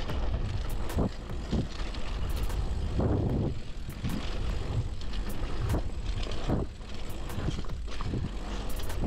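Mountain bike riding down a dirt trail: a steady low rumble with frequent clicks and rattles from the bike as it rolls over the ground.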